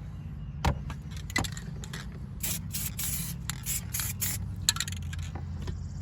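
Aerosol can of carpet dye spraying onto truck carpet in a series of short hissing bursts, densest in the middle, mixed with scraping and a few sharp clicks.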